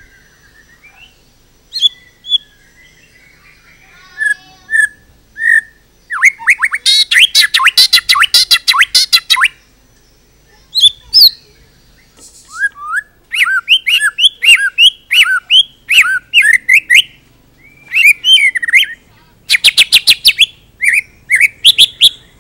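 White-rumped shama singing a varied song. Scattered short notes open it, then a fast rattling run of notes comes about six seconds in, a series of repeated whistled notes follows, and more fast runs come near the end.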